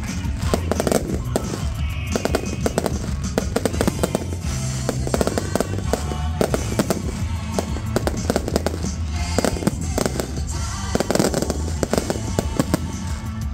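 Fireworks going off in rapid succession, many sharp bangs and crackles, over loud music with a steady bass.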